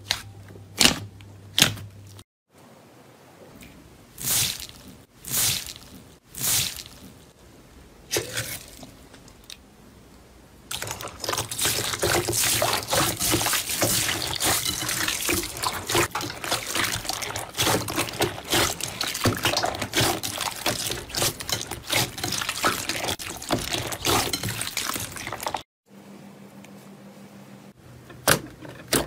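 Hands squeezing and stretching slime, making wet pops and squelches. A few separate ones come first, then about fifteen seconds of dense crackling as a glossy slime mixed with small beads is kneaded. A few more pops come near the end.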